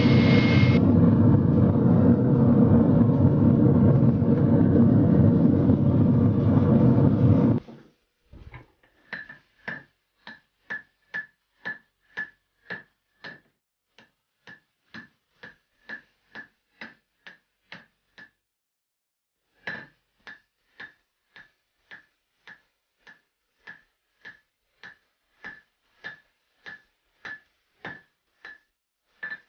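A loud steady rushing noise that cuts off suddenly about a quarter of the way in. After it come hand-hammer blows on a red-hot steel axe head on an anvil, about two strikes a second, each with a short metallic ring, pausing briefly once near the middle.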